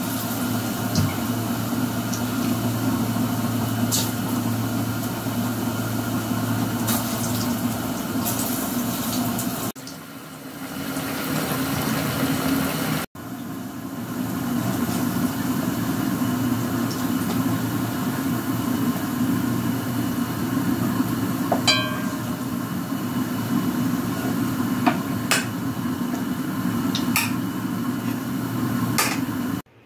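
A metal spoon clinks and scrapes against a cooking pot and a bowl as food is dished out, with scattered sharp knocks over a steady low hum.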